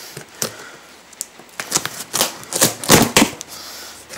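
Cardboard shipping box being handled and pried open: irregular scrapes and crackles of cardboard and packing tape, with a cluster of louder sharp cracks about two to three seconds in.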